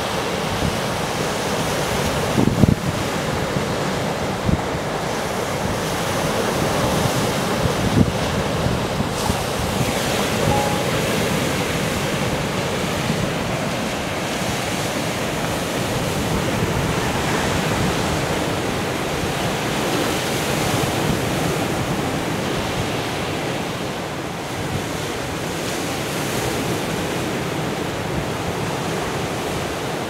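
Rough sea surf breaking and washing against a rocky shore, a continuous rush of waves. Wind gusts buffet the microphone, with a few brief low thumps about two and a half and eight seconds in.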